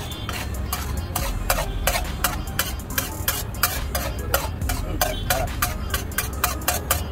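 Flat steel spatula clattering and scraping against a large flat griddle (tawa) while stirring pav bhaji, in quick irregular strokes of about four a second. A steady low hum runs underneath.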